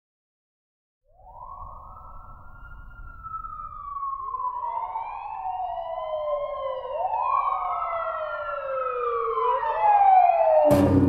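Two sirens wailing out of step with each other, each sweeping up quickly and falling slowly. They fade in after about a second of silence and grow louder. A sudden loud hit with a low rumble comes near the end.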